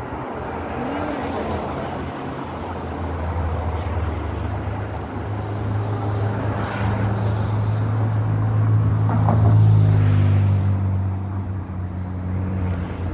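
A motor vehicle's engine running nearby as a steady low hum, growing louder to a peak near the end and then easing off, as if it passes slowly.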